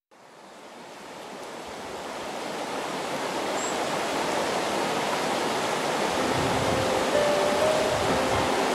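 Shallow river rushing over rocks, fading in from silence and growing louder over the first few seconds. Soft music notes begin to enter near the end.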